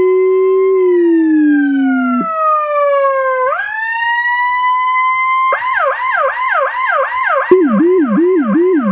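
Whelen Carbide electronic siren sounding the 'Comp Wail' tone: a slow wail, at first doubled by a low tone from the Howler low-frequency speaker, which cuts out about two seconds in. The wail then falls and sweeps back up. About five and a half seconds in it switches to the fast 'Comp Yelp', about three sweeps a second, and near the end the Howler's low yelp joins in under it.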